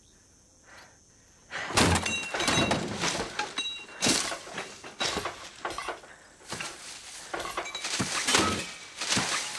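Metal wheelchair tumbling down a steep dirt-and-rock slope: a string of crashes and clattering metal knocks that starts about a second and a half in and goes on in repeated impacts.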